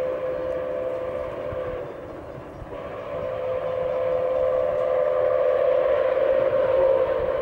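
Steam whistle of Milwaukee Road 261, a 4-8-4 Northern steam locomotive, blown in long blasts as it approaches a grade crossing. The whistle eases briefly about two seconds in, then sounds again louder.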